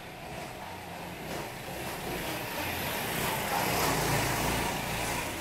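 A motor vehicle passing close by on the street, its engine rumble and tyre noise swelling to a peak about four seconds in and then easing off.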